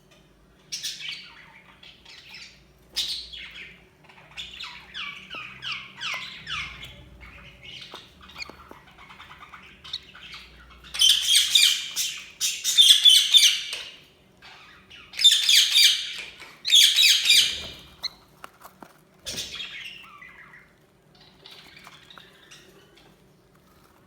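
Budgerigars chirping and squawking: first a run of short falling chirps, then two spells of loud squawking in the middle, then quieter chirps near the end.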